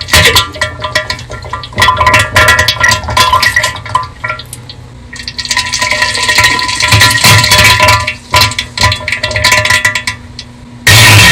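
Bass-boosted, heavily distorted diarrhea fart sound effect: irregular bursts, clipping loud. It eases off a few seconds in and again shortly before the end, then jumps back to full loudness.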